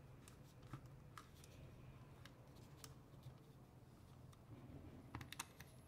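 Near silence, broken by faint scattered clicks of a Phillips screwdriver turning the centre screw into a brushcutter's plastic recoil starter, with a quick cluster of clicks near the end.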